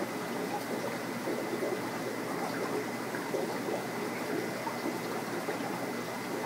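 Steady running and bubbling of water from a reef aquarium's circulation, with a faint steady high whine.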